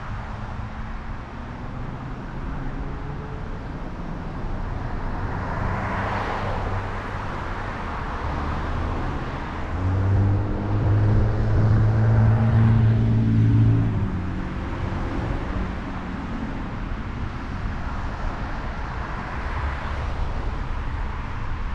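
A car driving along a road in traffic, with steady tyre and road noise. Other vehicles pass about six seconds in and near the end. From about ten to fourteen seconds in, a louder engine hum with a clear pitch rises, then fades.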